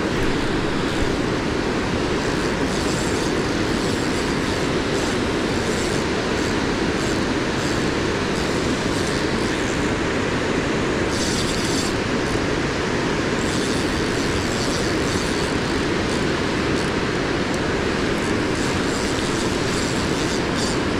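Water rushing steadily over a low dam close by. Faint clicks from a spinning reel being cranked show over it, most around the middle, as a hooked fish is reeled in.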